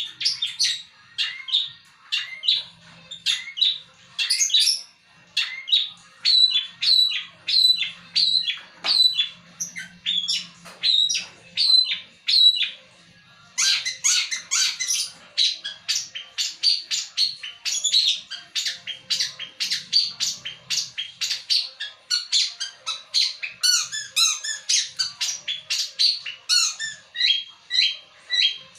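Long-tailed shrike (pentet) singing a long, varied song full of imitated fill-in calls: sharp, spaced notes at about two a second at first, then from about halfway a fast, dense run of chattering notes.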